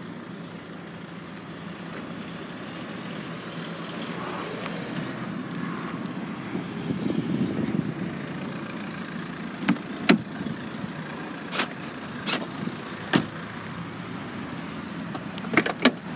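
A car engine running steadily with a low rumble that swells a little about halfway through, and a few sharp clicks and knocks; a cluster of clicks near the end as the estate's tailgate is released and lifted.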